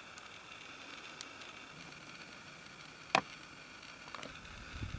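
One sharp click about three seconds in, with a few fainter ticks, over a quiet steady outdoor background hiss.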